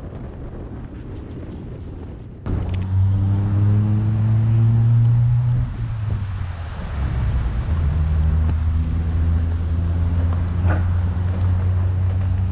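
Wind buffeting the microphone, then about two and a half seconds in an abrupt switch to a semi truck's diesel engine pulling the loaded boat trailer. The engine pitch rises, falls at a gear change about three seconds later, then rises again.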